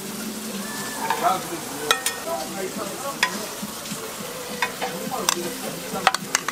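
Bracken and kimchi sizzling on a hot cast-iron cauldron-lid (sotttukkeong) griddle. Steel tongs clack sharply against the steel bowl and griddle about half a dozen times, several in quick succession near the end.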